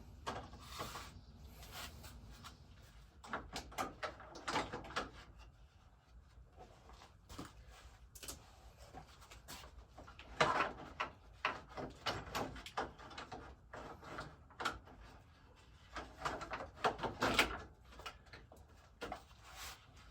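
Irregular clicks, knocks and clatter in short clusters, the loudest about ten seconds in and again about seventeen seconds in: hand tools and metal parts being handled during the fan motor work.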